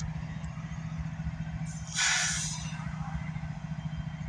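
Steady low rumble of an idling diesel engine, with a short burst of hiss about two seconds in.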